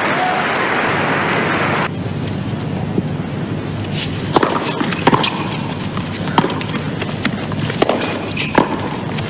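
Crowd applause that stops abruptly about two seconds in. Then a tennis point: a serve and a rally, heard as a string of sharp pops from racquets striking the ball and the ball bouncing on the hard court, over a low crowd murmur.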